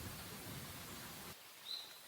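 Common kingfisher giving one short, high, thin call near the end. Before it a low rumble cuts off abruptly.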